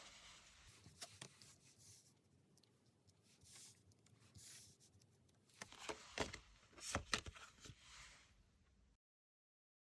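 Tarot cards being handled: faint rustling and swishing, with a cluster of sharper snaps and taps about six to seven and a half seconds in.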